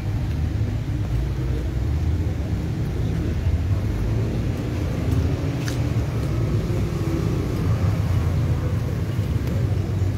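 Low steady rumble of a hearse's engine as it crawls along at walking pace, with one sharp click about six seconds in.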